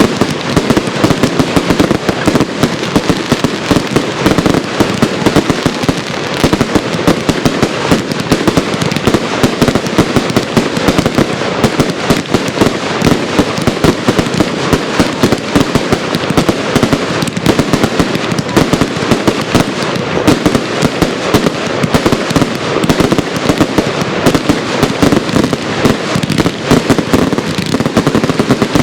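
Consumer firework cakes firing in a dense, continuous barrage: many sharp bangs and crackling bursts a second with no pause.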